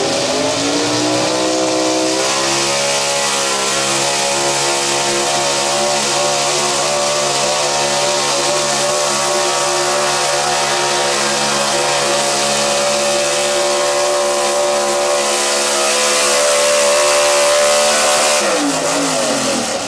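Gas-engined stock pickup truck's engine at full throttle pulling a weighted sled. The revs climb over the first two seconds and hold high and steady for a long stretch, then fall away near the end.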